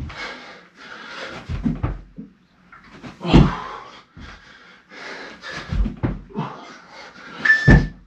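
Heavy panting and wheezing breaths from a man doing fast chest-to-floor burpees, with a low thud about every two seconds as he drops and lands. Near the end a workout interval timer beeps.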